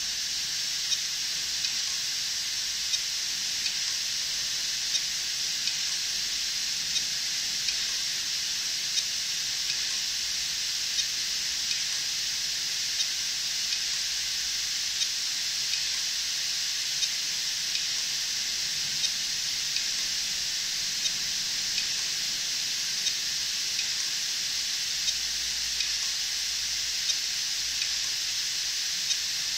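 Hard disk drive clicking at a steady rate of about once a second over a constant hiss. The repeated clicking is the sign of a failing hard drive.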